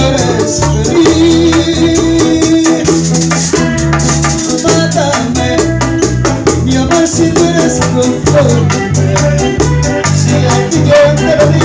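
Live bachata band playing an instrumental passage: a metal güira scraping an even, fast rhythm over a hand drum, guitar melody lines and a deep bass.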